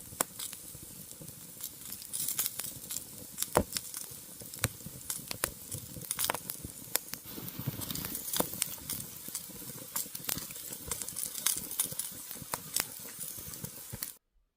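Cooking over a campfire: a steady sizzling hiss with frequent sharp crackles and pops. It cuts off abruptly near the end.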